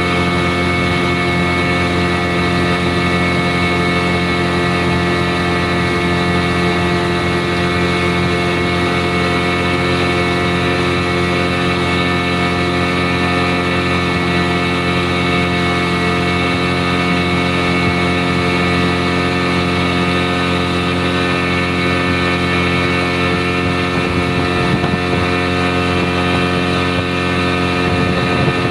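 Boat engine running at a steady speed, its pitch and level unchanging throughout.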